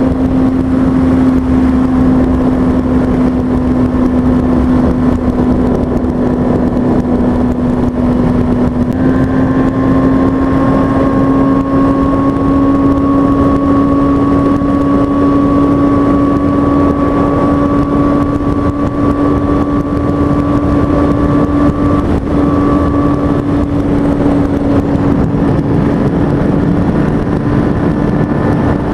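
2003 Kawasaki ZX-6R's 636 cc inline-four engine running at steady high revs at freeway speed, mixed with wind and road rush. Its note steps up a little about nine seconds in and then climbs slowly.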